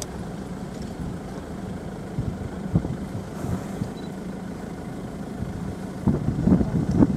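Safari game-drive vehicle's engine idling steadily with a low hum. About six seconds in, a short cluster of louder low rough sounds rises over it.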